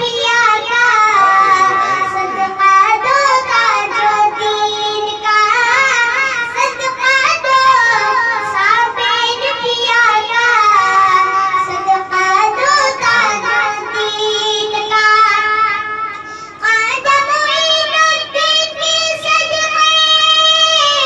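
A young boy singing a naat, an Urdu devotional song in praise of the Prophet, into a handheld microphone, with wavering, ornamented melody lines. Near the end he holds one long high note.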